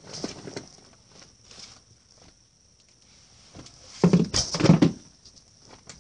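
Rustling and scattered knocks of someone moving about and handling things close to the microphone, with a louder cluster of bumps about four seconds in, over a faint steady high hiss.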